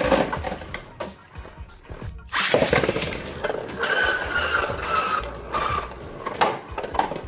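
Two Beyblade Burst spinning tops, one of them a Glide Hyperion, running and grinding across a plastic stadium floor, with irregular clacks as they collide and hit the wall. A loud clash comes about two and a half seconds in, and a whirring whine in the middle slides down in pitch.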